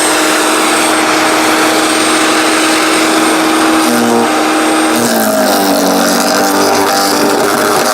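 15 amp electric wood chipper shredder running loudly with a steady whine and hiss. About five seconds in, its pitch drops and wavers.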